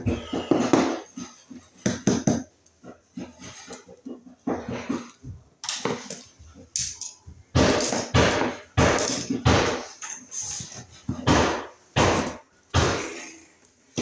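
Hand tools and small parts being handled and set down on a plywood subfloor: a string of irregular knocks and clatters, coming more often in the second half.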